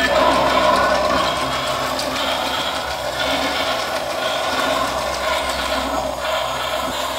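Battery-powered plastic toy steam train running around its plastic track: a steady mechanical whirring and rattling from its motor and wheels.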